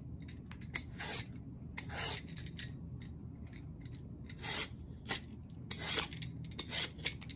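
Y-shaped vegetable peeler shaving the skin off a white eggplant: a series of about ten short rasping scrapes, one per stroke of the blade, irregularly spaced with a lull around the middle.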